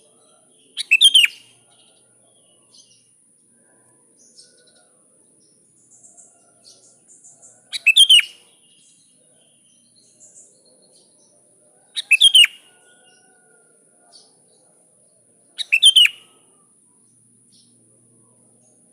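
Sooty-headed bulbul calling: four short, loud bursts of song several seconds apart, with faint chirps between them.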